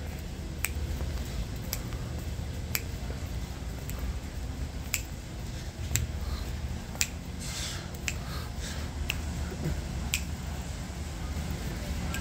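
Footsteps on a polished concrete floor: a sharp click about once a second, over a low steady hum.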